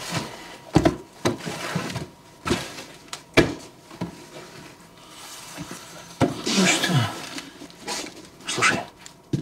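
Hardback books being handled and stacked onto a pile: several dull knocks as books are set down, with softer rustling and shuffling between them. About two-thirds of the way through, a man makes a short wordless voiced sound that falls in pitch.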